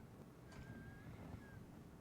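Near silence: faint room tone, with a faint thin high tone heard briefly around the middle.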